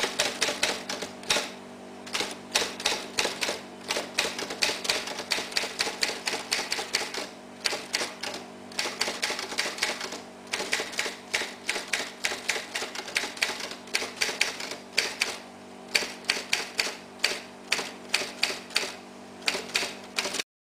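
Typewriter keys clacking in quick runs with short pauses between them, a typing sound effect laid under text being typed out on screen, over a faint steady low hum. It cuts off suddenly near the end.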